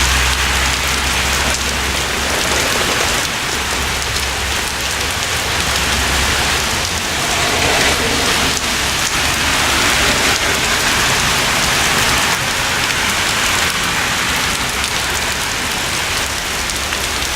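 Heavy rain falling steadily during a thunderstorm, a constant loud hiss of rain.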